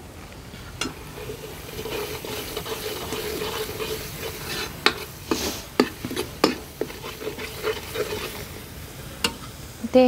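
Steel ladle stirring and scraping a spice masala frying in oil in a kadhai, with a steady sizzle and several sharp clinks of the ladle against the pan.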